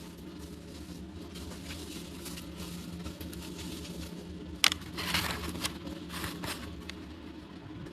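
Small plastic toy pieces and packaging handled up close: light clicks and taps, a sharp click about four and a half seconds in, then a brief rustle. A steady low hum runs underneath.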